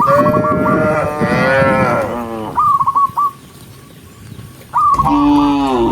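Cattle mooing: several long, overlapping moos at the start, then a pause and another moo near the end. A short, high, warbling chirp sounds in the pause.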